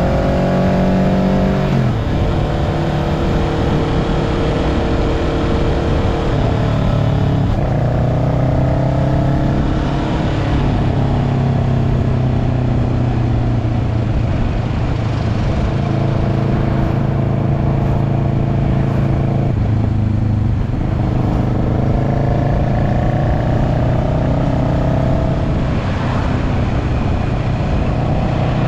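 Kawasaki Ninja 650's parallel-twin engine running through an aftermarket slip-on exhaust, under way. Its pitch climbs slowly and drops abruptly about four times, near the start, about a quarter of the way in, past the middle and near the end.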